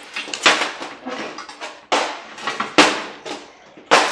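Sharp metal clanks and rattling from a gutted microwave oven's steel case as the heavy transformer is worked loose, with four hard knocks about a second apart.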